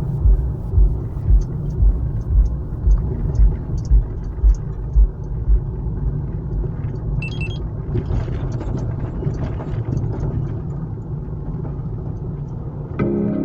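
A car driving, a steady low rumble of engine and road noise, with a regular low thump about twice a second for the first five seconds.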